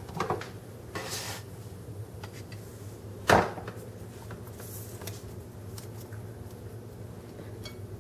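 Kitchen handling sounds while fortune cookies are made: a soft rustle, a few faint clicks and one sharp knock about three seconds in, like a utensil or cookie set down on a plate, over a low steady hum.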